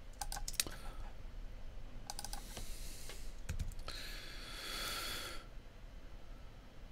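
Computer keyboard typing in two short runs of key clicks, followed by a brief rush of hiss about four seconds in.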